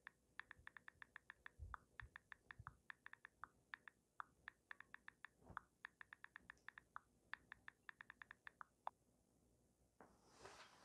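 Smartphone keyboard clicks as a message is typed on the touchscreen: a quick, uneven run of soft ticks, about five a second, that stops about nine seconds in. A faint hiss-like noise starts near the end.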